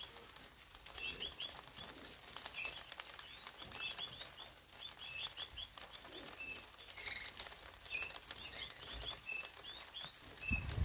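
Small songbirds chirping, short high notes scattered through, busiest about seven seconds in, over a light steady hiss of falling rain.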